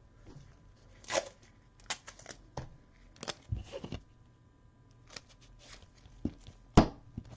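Trading card and rigid plastic top loader being handled: scattered light clicks, scrapes and rustles, with a sharper tap near the end.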